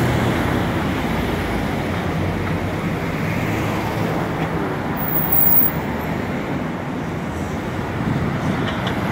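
Steady city street traffic noise: vehicle engines running and tyres passing on a busy road.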